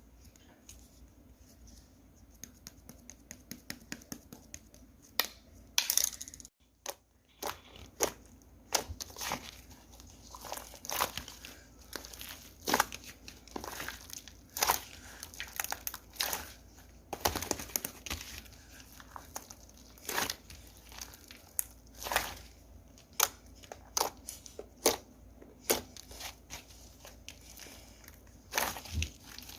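Hands playing with slime: a string of irregular, sharp pops and crackles as it is pressed and stretched, a few every couple of seconds.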